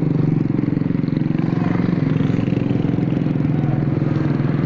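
Motor scooters and a small car passing close by in street traffic, their engines running with a steady low drone.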